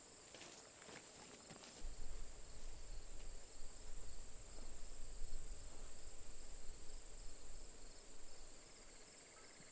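Insects, crickets by their steady high chirring, trilling throughout. An uneven low rumble rises about two seconds in and fades near the end.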